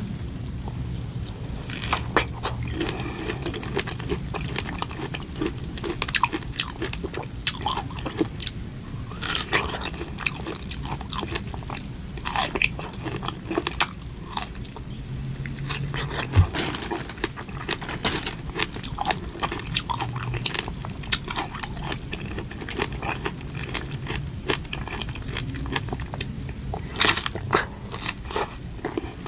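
Close-miked eating: biting and chewing, with many sharp crunching and clicking mouth sounds at irregular intervals over a low steady hum.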